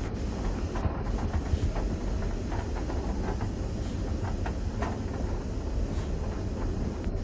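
West Coast Wilderness Railway train running past on the move: a steady low rumble with scattered short clicks from the wheels and rails.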